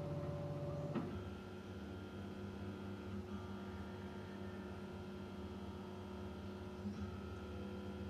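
Stepper motors of a homemade CoreXY 3D printer whining steadily as they drive the print head along the gantry. The pitch jumps to a new steady note with each new move, with a small click about a second in, again about three seconds in and near seven seconds.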